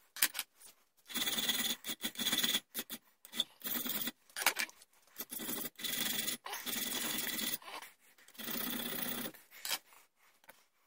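Hand file pushed in long strokes across a steel rear sight clamped in a bench vise, a rasping scrape on each stroke of about a second. The strokes repeat with short gaps and stop shortly before the end.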